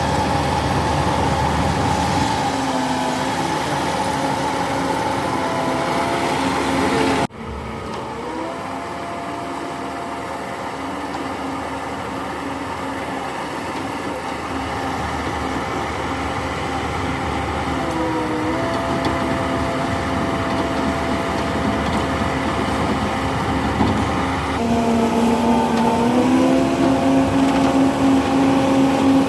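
Heavy construction machine's engine running, its pitch stepping up and down several times as it is revved and eased off. An abrupt cut about seven seconds in, after which the engine goes on at a different pitch.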